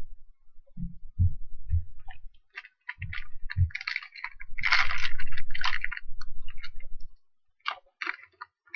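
Foil wrapper of a trading-card pack crinkling as it is peeled and torn open by hand, loudest about five seconds in, after a few dull thumps of cards being handled.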